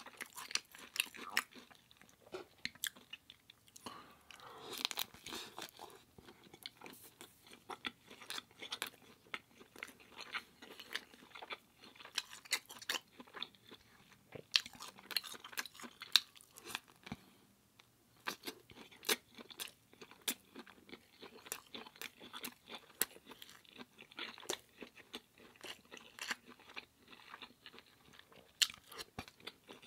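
Close-miked chewing and crunching of food, with many sharp, irregular crunches throughout.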